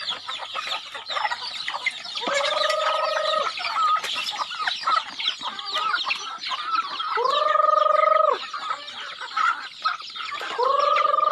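A flock of chickens clucking and chirping constantly. Three long calls held at one steady pitch stand out, each about a second and a half, at about two, seven and ten and a half seconds in.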